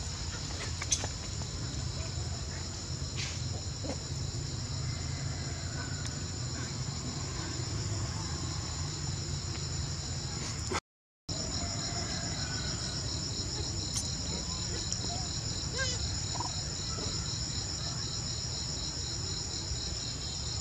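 Steady, high-pitched insect chorus, turning into an even pulsing in the second half, with a brief gap in the sound about halfway.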